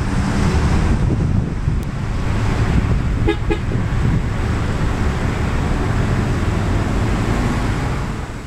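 Heavy wind buffeting the microphone, with two short car-horn toots about three and a half seconds in.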